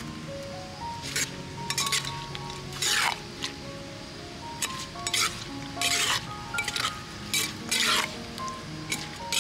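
A metal spoon scraping and tossing shredded green papaya salad around a clay mortar: about ten short scraping strokes at uneven intervals, over background music.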